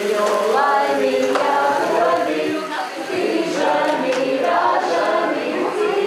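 A group of people singing a birthday song together, many voices at once.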